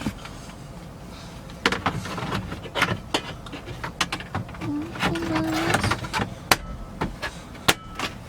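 Irregular clicks, knocks and rattles of hand tools and plastic trim panels being handled inside a pickup's cab during reassembly, with a brief squeaky tone about five seconds in.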